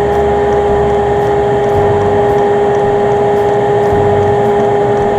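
A steady machine hum with an unchanging whine, running evenly throughout.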